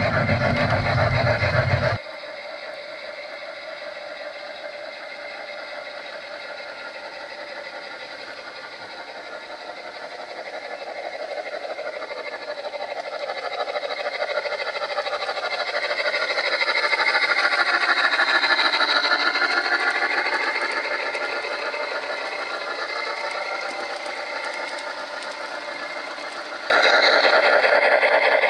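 Gauge 1 model train, an MTH Erie Triplex steam locomotive hauling freight cars, running on garden track with a steady mechanical rolling clatter of wheels and drive. After a sudden drop in level early on, it grows louder as the train approaches and passes close by around the middle, fades, and is abruptly loud again near the end.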